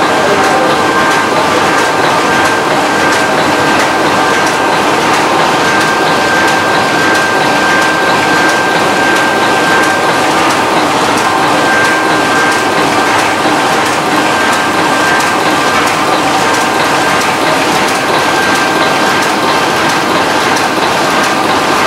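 Heidelberg GTO 52 sheet-fed offset printing press running: a steady, loud mechanical clatter of gears and feeder mechanisms with regular clicks and a thin high tone that comes and goes.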